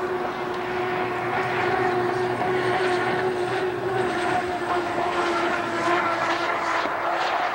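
Unlimited hydroplane racing boat running at high speed: a steady engine note over a loud rushing hiss.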